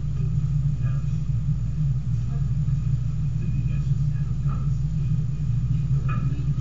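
Steady low-pitched hum with no change in level, under faint, indistinct voices.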